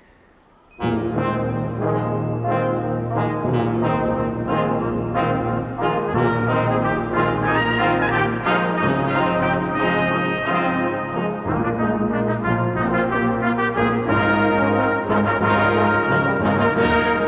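Brass band playing the instrumental introduction of a Christmas carol medley, entering strongly about a second in with full trombones and trumpets and crisp, accented notes.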